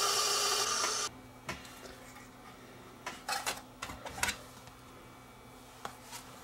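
HD DVD player's disc spindle motor spinning a Blu-ray disc with a steady whir, which stops about a second in because the player cannot read the disc. A few faint clicks and taps follow from handling the stopped disc.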